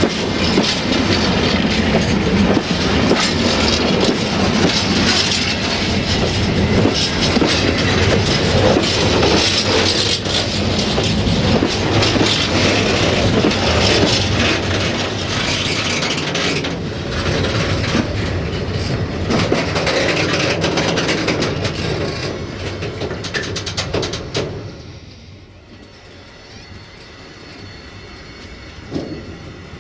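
Steel wheels of freight wagons rolling along the rail right beside the microphone, a continuous rumble with many metallic clicks. The noise drops sharply about 25 seconds in.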